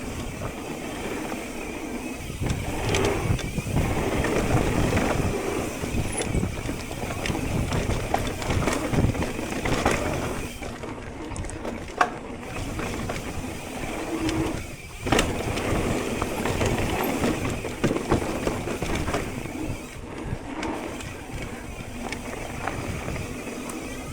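Electric mountain bike riding down a dirt trail: continuous tyre and trail noise, with frequent clicks and knocks from the bike rattling over bumps.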